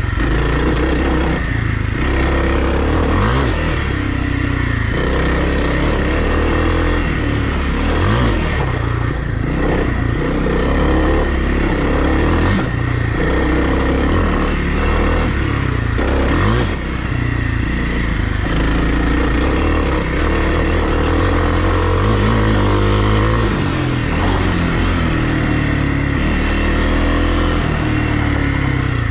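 2020 Kawasaki KLX300R dirt bike's single-cylinder four-stroke engine running under way, revving up and dropping back again and again as the throttle is worked.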